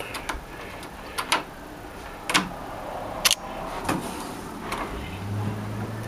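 Sharp metallic clicks and knocks from a nightlatch being worked as the door is closed against the frame, its latch bolt snapping into the strike; the loudest click comes about three seconds in. A low steady hum comes in near the end.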